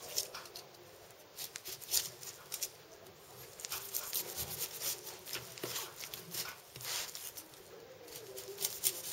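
Kitchen knife cutting the eyes out of a peeled pineapple's flesh: irregular soft, crisp cuts and clicks.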